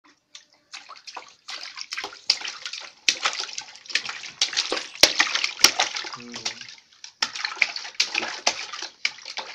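A baby slapping the water in a plastic washtub with both hands: a run of irregular splashes, with two sharper slaps about five seconds in and a short lull near the end.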